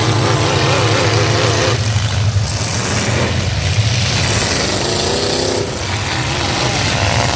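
Engines of several full-size demolition derby pickup trucks running with a steady low rumble. The revs rise and fall in the first second or two and again about five seconds in.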